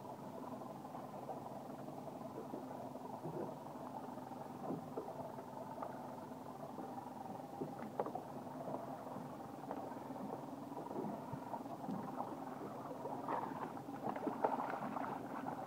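Boat engine idling with a steady hum. Near the end come small splashes as a hooked bluefish thrashes at the surface beside the hull.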